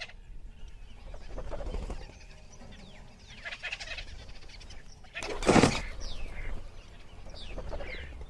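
Birds calling in short falling notes, with one brief loud burst of noise about five and a half seconds in.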